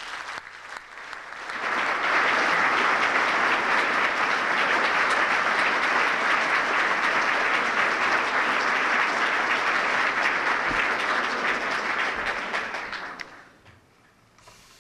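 Audience applauding: a few scattered claps that swell into full, steady applause about two seconds in, then die away shortly before the end.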